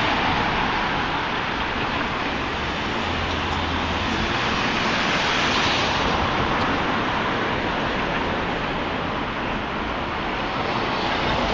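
Steady, even rushing noise of city traffic and wind, with no distinct events standing out.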